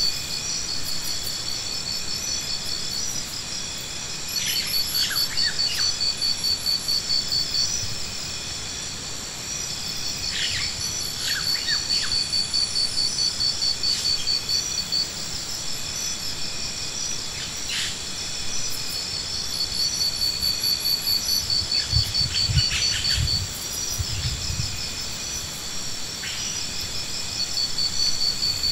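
A steady chorus of insects shrilling, with high pulsing trills that fade and return, and a few short high chirps. Several low thumps come about three-quarters of the way through.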